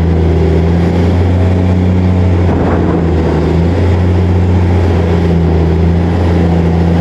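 Heavy diesel engine of an excavator running steadily, a deep even drone, with a short rougher burst of noise about three seconds in.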